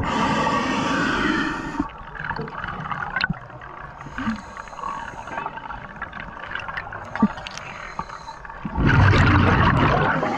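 Scuba diver breathing through a regulator underwater: a long burst of exhaled bubbles at the start and another near the end, with quieter crackling and a few sharp clicks between.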